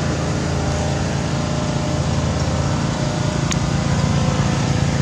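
Steady hum of a running motor-vehicle engine, with a single sharp click about three and a half seconds in.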